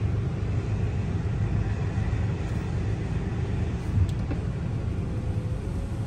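Road and engine noise inside the cabin of a Mercedes-Benz car moving slowly in traffic: a steady low rumble, with a single light click about four seconds in.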